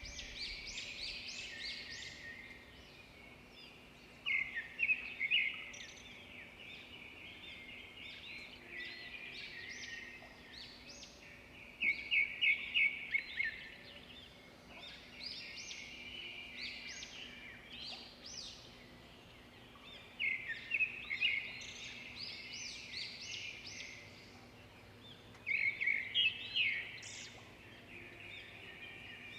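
Birds singing: phrases of rapid, high chirping notes, with a loud trilled burst every several seconds, four times in all.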